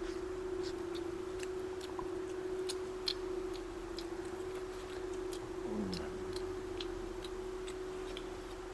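Quiet eating sounds: irregular small clicks and smacks, about two a second, as a man gnaws and sucks on a cooked meat bone, over a steady low hum.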